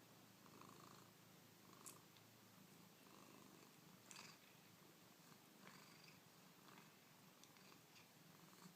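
Faint, steady purring of a British shorthair cat, with a few soft clicks.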